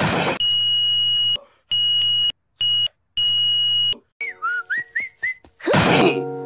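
Cartoon sound effect of a wooden chair smashing, loud at the start and again near the end. Between the two, a high steady tone beeps four times in uneven lengths, followed by a quick run of short whistled chirps.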